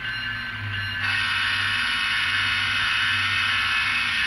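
N-scale GE ET44AC model locomotives running at low throttle, their ESU LokSound decoders playing GE diesel engine sound through small onboard speakers. The sound steps up in level about a second in and then holds steady.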